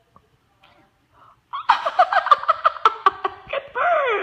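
Near silence for about a second and a half, then a run of quick, pulsing laughter, with a falling pitched sound near the end.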